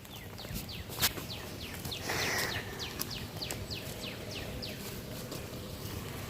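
A bird singing a run of quick, high, falling notes, about three a second, that stops after about four and a half seconds. A sharp knock about a second in and a brief rustle around two seconds break in over it.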